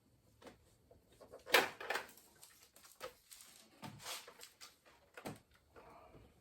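Scattered plastic clicks and knocks of hands handling a car door's interior trim panel and wiring connectors, the loudest click about a second and a half in.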